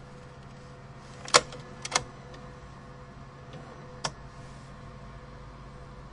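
Cash machine (ATM) being used: a steady machine hum with a fixed tone, broken by sharp clicks. There is a loud single click, then a quick double click just after it, and another click a couple of seconds later.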